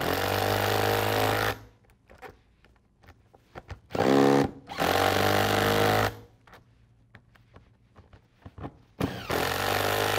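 Power impact wrench running nuts down onto the bolts of Flexco bolt solid plate fasteners in three runs of one to two seconds each. This is the final tightening pass that compresses the plates into the conveyor belt.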